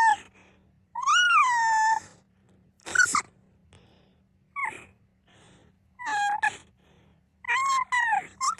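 A small pet's high-pitched whining cries: a long call that rises and falls about a second in, shorter calls around three, four and a half and six seconds, and a two-part call near the end, with a short sharp burst about three seconds in.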